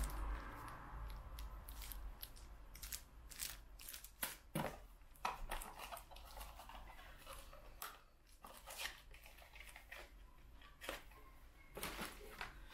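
Small cardboard parts boxes and packaging being handled and opened: a scatter of short, irregular clicks, scrapes and rustles.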